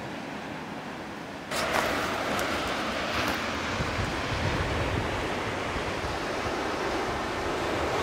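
Sea surf washing on a rocky shore, a steady rush of waves. It steps up louder about a second and a half in.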